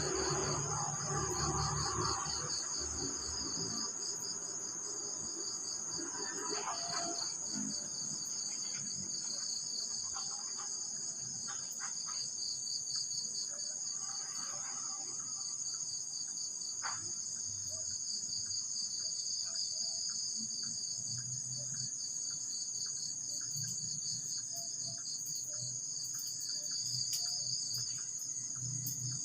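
Steady high-pitched chorus of insects, such as crickets, trilling without a break, with scattered faint clicks and knocks and a low muffled rumble in the first few seconds.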